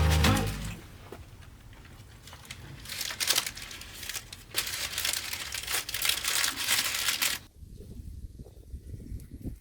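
A wrapper crinkling and rustling as it is handled, in irregular bursts over several seconds. It stops abruptly near the end, leaving fainter scattered knocks.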